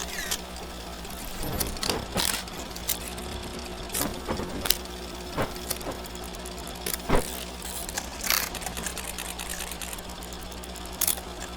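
Vintage film projector sound effect: a steady running hum with irregular crackles and pops of old film.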